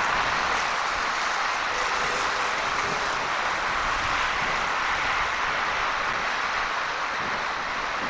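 Steady rushing noise of strong storm wind, even and unbroken, with no distinct firework bangs standing out.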